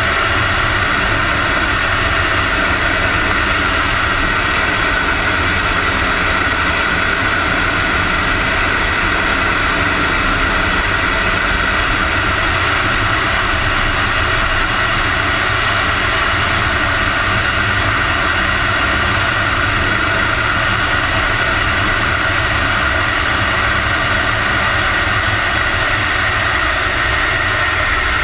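Engine of a radio-controlled model MB-339 jet in flight, heard from a camera inside its cockpit: a steady high whine over a low rushing rumble, with no change in pitch or level.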